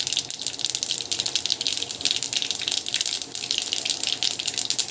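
Mustard and cumin seeds spluttering in hot oil in a kadai: a steady sizzle with a dense run of quick crackling pops.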